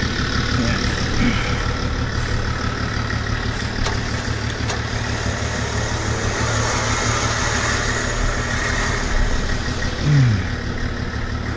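Nissan GQ Patrol's TD42 straight-six diesel idling steadily while the vehicle is winched up a slippery clay slope. A brief falling whine comes about ten seconds in.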